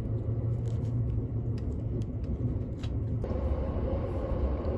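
A moving train's running rumble inside the passenger car, a steady low hum with a few light clicks. About three seconds in, the rumble drops to a lower, fuller hum.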